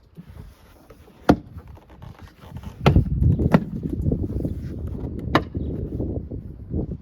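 Close handling noise: rustling and low rumbling with several sharp clicks or knocks. The loudest click comes about a second in; from about three seconds in the rustling grows denser, with further clicks.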